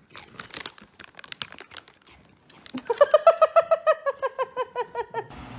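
Soft clicks and rustles, then about three seconds in an animal gives a fast run of some twenty short, high calls, about nine a second, sinking slightly in pitch.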